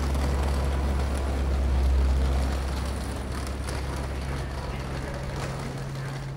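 Train-station platform ambience dominated by the steady low hum of a passenger train standing at the platform, with scattered light clicks over it. The hum swells slightly about two seconds in.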